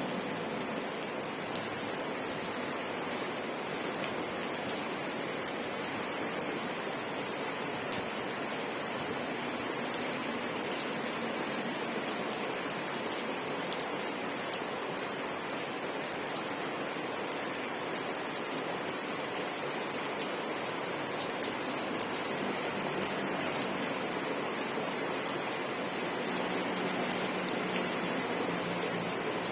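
Steady rain falling, an even unbroken hiss, with a constant high-pitched whine running over it.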